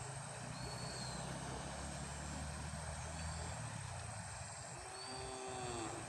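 Engine running steadily with a low hum, under a constant hiss; a few faint short whistles come and go, the clearest near the end.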